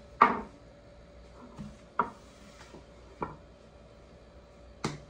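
Baklava dough being thrown onto a marble slab while it is opened into sheets: four sharp knocks about a second and a half apart, the first the loudest.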